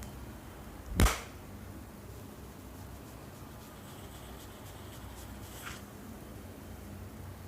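A single loud, sharp crack about a second in, from a head-and-neck cracking massage, followed by faint rustling and small crackles of hands working through hair.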